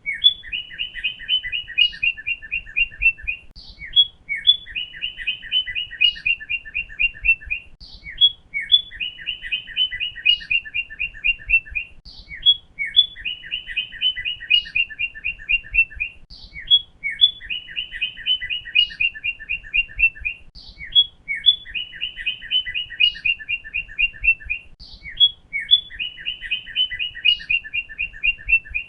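Northern cardinal singing: about every four seconds a phrase of a few high sliding notes followed by a fast run of short whistled notes, repeated seven times.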